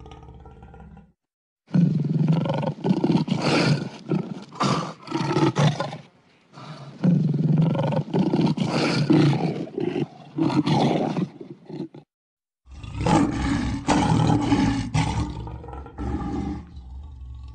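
Lion roaring, played as an edited-in sound effect: three long stretches of roaring, with abrupt cuts to dead silence about a second in and about twelve seconds in.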